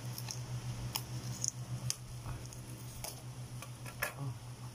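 Plastic stretch film being picked at and peeled off a fishing rod by hand: scattered small crackles and ticks of the plastic, over a steady low hum.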